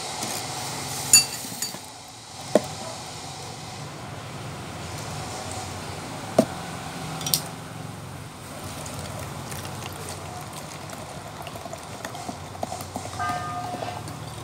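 A few sharp clicks and knocks of glass, then cola poured from a one-litre glass Coca-Cola bottle into a drinking glass from about eight seconds in, fizzing as the glass fills.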